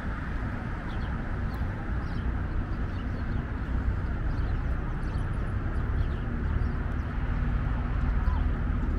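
Steady low rumble of city traffic, with small birds chirping now and then.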